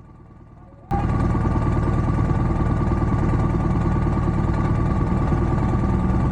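Adventure motorcycle engine idling steadily, cutting in abruptly about a second in after a brief quiet gap.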